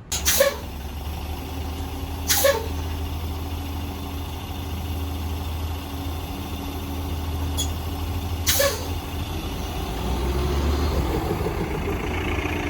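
A vehicle running with a steady low rumble, broken three times by short, sharp noises.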